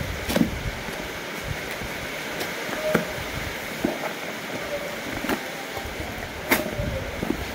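Cardboard shipping box being handled and pulled open by hand: a few scattered sharp crackles and taps of cardboard, the loudest near the end, over a steady hiss.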